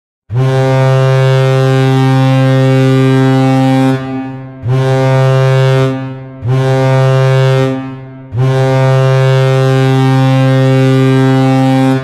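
Vegas Golden Knights goal horn, a loud, low-pitched ship-style air horn, sounding four blasts: a long one, two shorter ones, then a long one.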